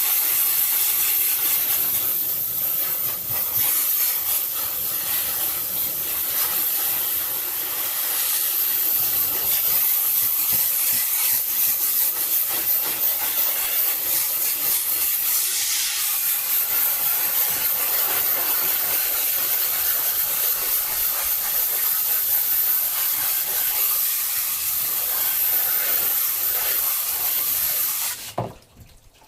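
Steady spray hiss from a nozzle during silkscreen plate making, cut off abruptly about a second before the end.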